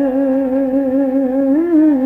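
A man's voice holding one long sung note at the end of a devotional doha line, the pitch wavering gently and lifting briefly near the end, over a steady drone.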